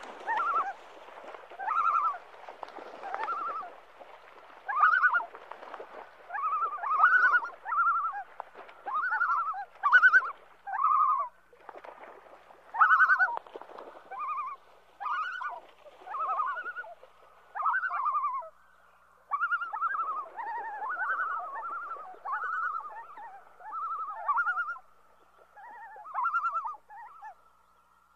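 Common loons calling: a long run of short wavering calls, about one or two a second and often overlapping. A faint long held note sits underneath from about halfway on.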